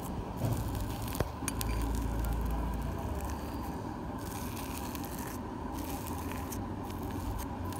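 Clear glitter slime with small beads being pressed and kneaded by fingers: sticky crackling with scattered small clicks and pops.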